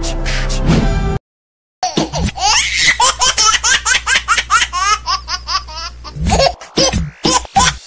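Intro music that cuts off about a second in, then, after a brief silence, loud, high-pitched, rapid laughter that carries on to the end.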